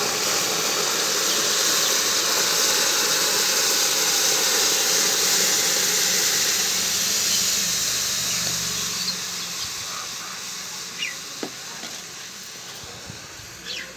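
Cold buffalo-milk cream (malai), straight from the freezer, hissing and sizzling as it hits a hot kadhai. The hiss is loud and steady at first, then fades gradually over the last several seconds.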